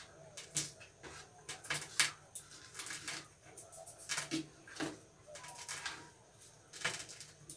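Eating sounds: fingers squishing and mixing rice on plastic plates and mouths chewing, heard as irregular soft clicks and crackles.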